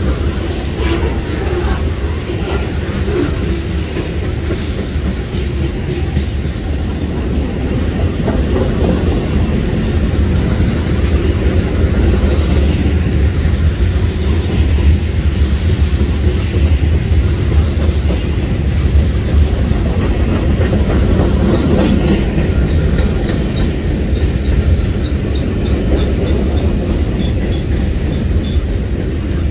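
Freight train of boxcars and covered hoppers rolling steadily past: a continuous rumble of steel wheels on the rails.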